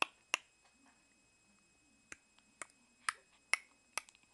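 A series of sharp, short clicks: two near the start, then after a pause a steady run of about two clicks a second.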